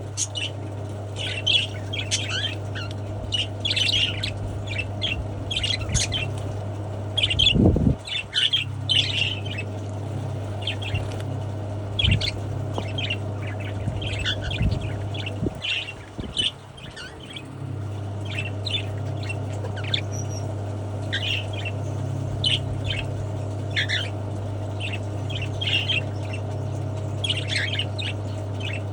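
Cockatiels chirping and squawking in short repeated calls, over a steady low hum that stops briefly about sixteen seconds in. A loud low noise breaks in briefly about seven and a half seconds in.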